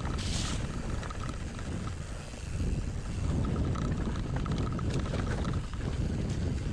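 Wind buffeting the microphone over the rumble of a mountain bike rolling on a dirt trail, with a faint ticking that comes and goes.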